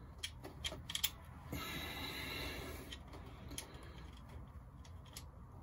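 Small clicks and taps of parts being handled as a nut is threaded by hand onto the bolt of a transmission shifter: several sharp clicks in the first second, a soft scraping rustle about a second and a half in, then a few single clicks.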